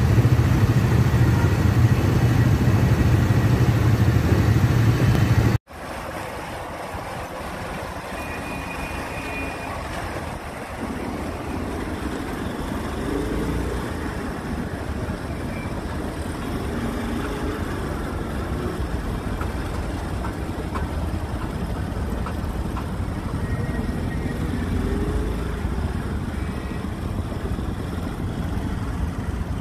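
Vehicle engines running in slow street traffic. A loud, heavy low rumble for about the first five and a half seconds cuts off abruptly and gives way to a quieter, steady traffic noise.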